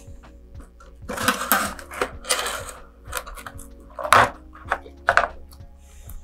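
Handling noise of a corrugated cardboard fin alignment jig and wooden fins being fitted around a model rocket body tube: several scraping, rustling strokes followed by a few sharp taps.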